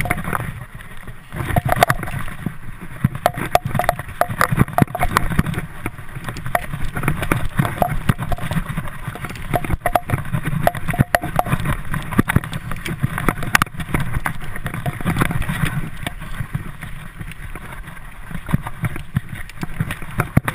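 Mountain bike ridden fast down a dirt singletrack: a continuous low rumble of tyres and wind on the microphone, with many sharp clicks and rattles from the bike jolting over bumps.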